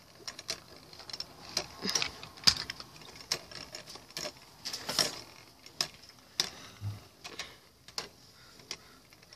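Two metal Beyblade spinning tops, Phantom Orion and L-Drago, spinning in a plastic Beyblade stadium: a faint steady whir with irregular sharp clicks, about two a second, as the tops clash.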